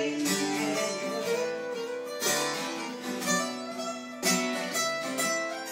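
Two acoustic guitars playing together in an instrumental passage, strumming chords with fresh strokes about once a second.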